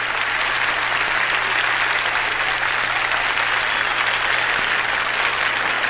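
Audience applauding on a live gospel record: dense, steady clapping that holds at one level.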